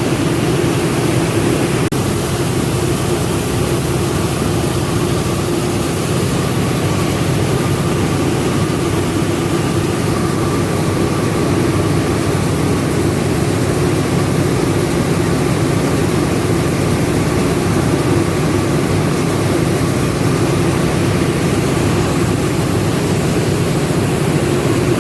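Rice milling machinery running steadily: a loud, continuous machine drone with a low hum and a faint steady whine above it.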